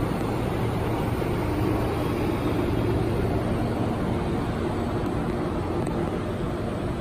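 Steady hum and hiss from a 1000 W automatic laser welding machine running, with a few low humming tones held even throughout and no distinct clicks or bangs.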